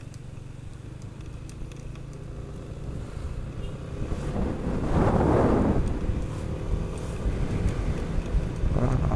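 Yamaha NMAX scooter's single-cylinder engine running at a steady cruise with wind noise, recorded while riding. About four seconds in, a louder rushing noise swells for a second and a half, then fades back to the engine hum.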